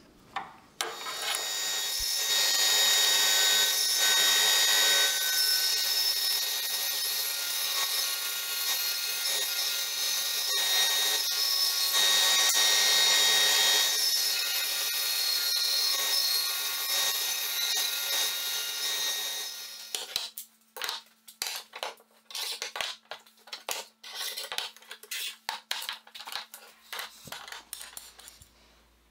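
Bandsaw running and cutting wood: a loud, steady saw noise that stops after about twenty seconds. Then come scattered knocks and clatters of wooden boards being set down on metal pipe clamps.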